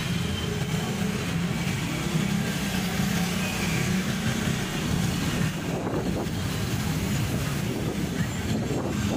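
Street traffic heard from a moving bicycle: motorcycle and car engines running steadily close by, with wind rushing on the microphone. About five seconds in, the engine hum fades and the wind rush takes over.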